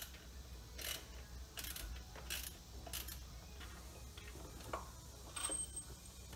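Hand ratchet wrench clicking in short bursts, about one a second at first and then more sparsely, as a small bolt on the belt tensioner is undone.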